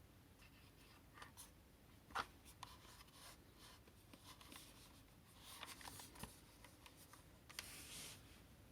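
Faint handling noises: scattered light clicks and brief rubbing or rustling, with one sharper click a little over two seconds in and a short rustle near the end.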